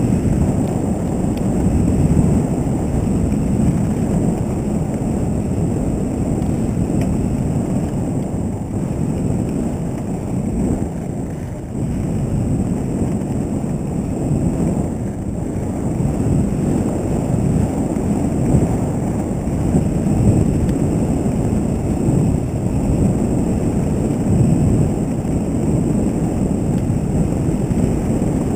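Mountain bike riding a dirt trail at speed: a steady rush of wind on the camera microphone mixed with the rumble of tyres over the dirt.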